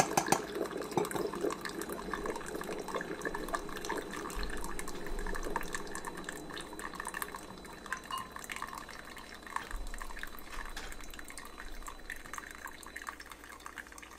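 Ninja Hot and Cold Brewed System coffee maker at the end of a specialty brew: concentrated coffee pouring and dripping into a glass cup, the trickle growing fainter and more broken toward the end.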